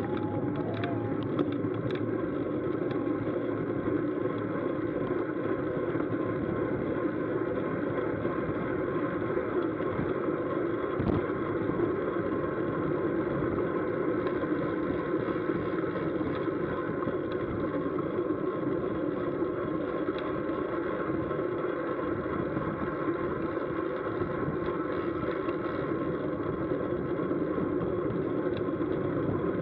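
Steady rush of wind and road noise picked up by an action camera on a racing bicycle moving at about 26 mph, muffled and even with no change in level.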